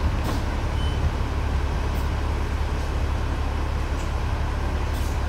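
Hong Kong double-decker tram in motion: a steady low rumble with a few faint clicks.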